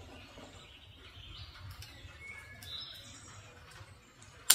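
Songbirds chirping in short whistled notes, then right at the end a single sharp crack: the AR-15 firing a 5.56x45 NATO round.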